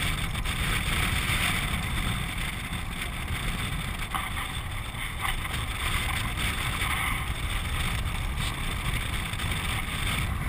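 Land yacht sailing across a hard dry lake bed: wind rushing over the open-mounted camera's microphone mixed with the rolling rumble of the wheels, a steady noise that is heaviest at the low end.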